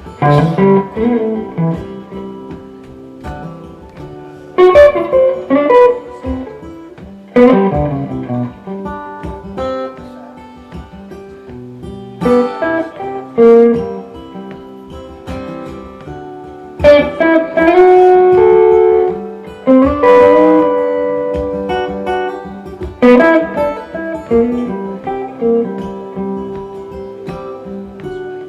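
Guitar instrumental break in a live song: picked single notes and chords, each with a sharp attack that rings out and fades, with several hard-struck accents.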